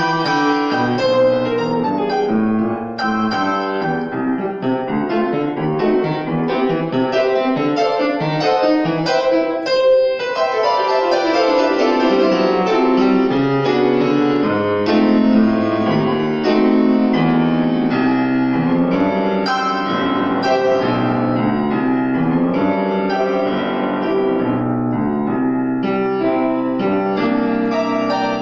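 Grand piano played solo, a continuous stream of notes in both hands with a sharp accent about ten seconds in.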